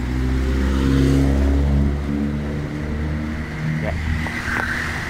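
A light pickup truck's engine running as it passes close by, loudest about a second in and then fading, over the steady noise of street traffic.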